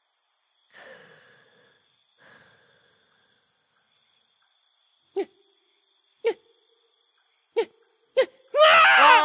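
Steady chirping of crickets as a night-time background. Two soft breathy sounds come about 1 and 2 seconds in. From about 5 seconds in, four short sharp sounds follow, then a louder, longer sound with falling pitches near the end.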